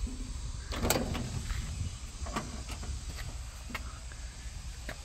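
Shacman F3000 truck cab door being unlatched by its pull handle and swung open, with a sharp clack about a second in, followed by a few light scattered clicks. A steady low hum runs underneath.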